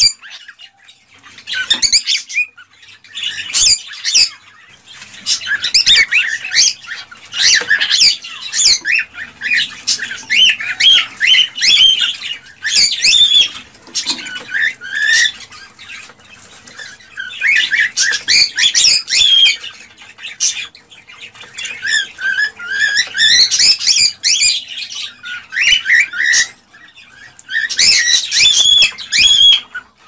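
Cockatiels chattering and calling: bouts of rapid, high-pitched warbling and chirping notes broken by brief pauses.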